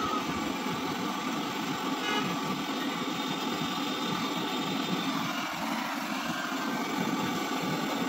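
Handheld gas torch on a screw-on canister burning steadily with a continuous rushing flame noise, heating an aluminium freezer evaporator pipe joint for soldering.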